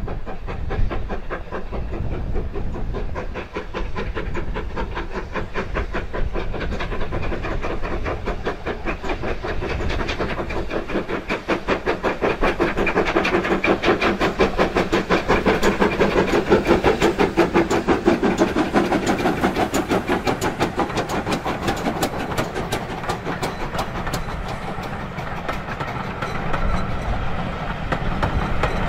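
Steam locomotive hauling a passenger train past at speed, its exhaust beats coming fast and loudest about halfway through as the engine goes by. Then the coaches roll past with a clickety-clack over the rail joints.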